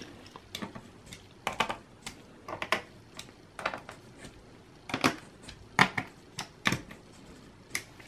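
Plastic clicks and light knocks from a Lenovo ThinkPad E480 laptop's bottom cover as it is pressed down and snapped into place by hand. The clicks are short and uneven, about one a second.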